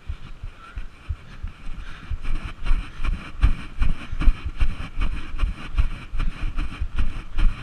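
Running footsteps thudding on the microphone, about three steps a second and louder from a couple of seconds in, with wind noise.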